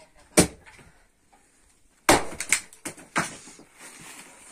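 Axe chopping firewood on a wooden chopping block. A sharp chop comes about half a second in, then a louder strike with a few quick knocks right after it about two seconds in, and another knock a second later.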